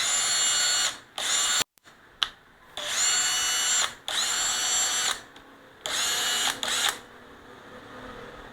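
EZ6470 cordless drill running with no load in five short bursts of about a second each, its motor whining at a steady pitch each time it is triggered.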